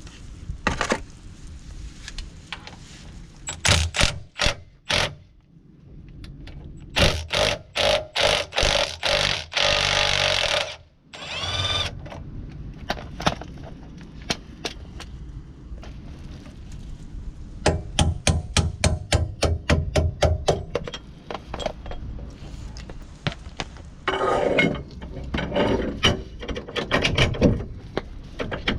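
Mechanic's hand tools at work on a van: runs of fast ratchet clicks, with metal clanks and knocks between them.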